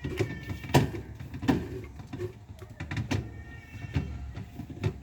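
Maytag top-load washing machine agitating: a steady low motor hum with irregular clicking and knocking from the agitator, its new agitator dogs catching so the top of the agitator turns again.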